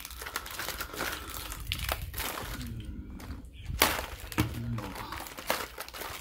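Lure packaging being handled and unwrapped, crinkling and rustling, with many small clicks and a sharper snap about four seconds in.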